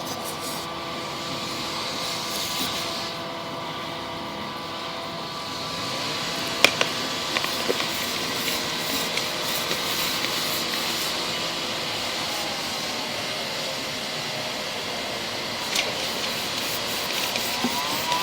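Steady machine hum with several held tones and scattered clicks, as a sewer inspection camera's push cable is pulled back through the pipe.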